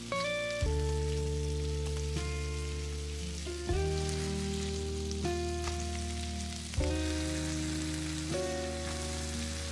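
Background music of sustained chords, a new chord struck about every second and a half and fading slowly, over the steady sizzle of chicken breasts frying in oil in a pan.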